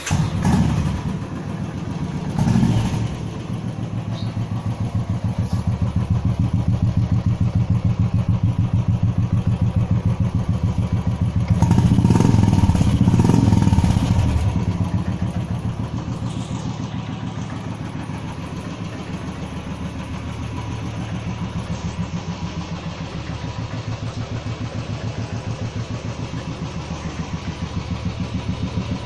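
Motorcycle engine running just after starting, with an even thumping exhaust beat at idle. It is blipped briefly early on and revved up for about three seconds near the middle before settling back to idle.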